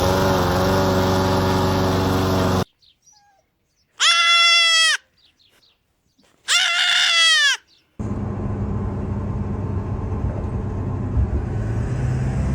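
A goat bleating loudly twice, each call about a second long and a few seconds apart, high-pitched and dropping at the end. Before and after the calls there is a steady, noisy rumble with a low hum.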